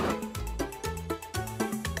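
Background music with a steady beat and a bass line that steps from note to note.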